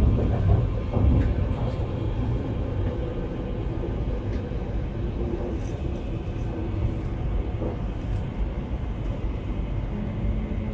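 Steady running rumble inside the car of an MTR Tuen Ma Line "Ikk-train" travelling between stations.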